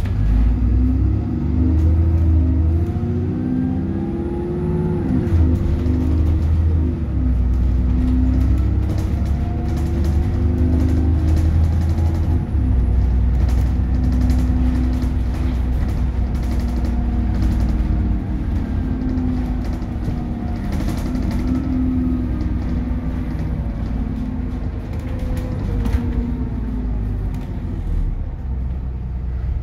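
Alexander Dennis Trident 2 / Enviro 400 double-decker bus heard from inside the saloon as it pulls away and drives on, its diesel engine and drivetrain running with a deep hum. The pitch rises and drops several times in the first seven seconds or so as it accelerates through the gears, then runs fairly steadily, falling again near the end, with light interior rattles throughout.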